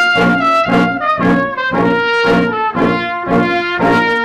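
Brass band music with a steady beat, sustained brass notes over a low pulse about three times a second.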